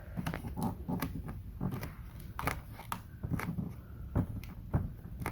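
Plastic squeegee being worked over vinyl wrap film on a Tolex-covered case: irregular short scrapes, crackles and clicks as the film is pressed down.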